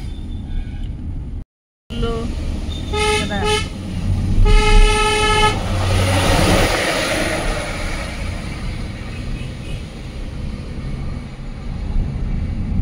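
Vehicle horn honking on a hill road: two short toots about three seconds in, then a longer blast about a second later, over the steady rumble of road and engine noise. Just after the horn a rushing noise swells and fades.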